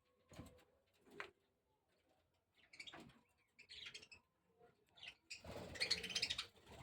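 Budgerigars chirping and chattering in short separate bursts, then a longer, louder run of chatter near the end.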